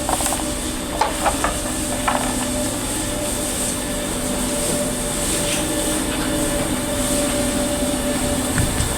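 A steady mechanical hum with a constant low drone, broken by a few sharp clicks about a second in and once more shortly after.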